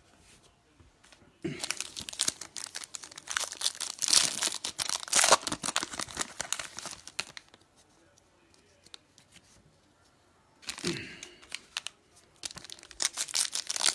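Foil trading-card pack wrappers being torn open and crinkled by hand, in a few seconds of dense crackling, then a pause, then more crinkling near the end.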